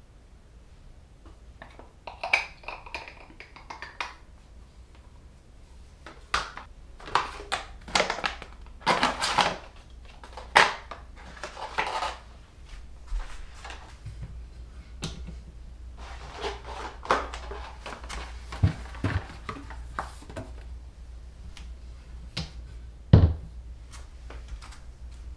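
Toiletries being handled on a bathroom countertop: plastic bottles and a plastic caddy knocking and sliding as they are set down, with bursts of packaging rustle. Near the end comes one louder, sharper knock.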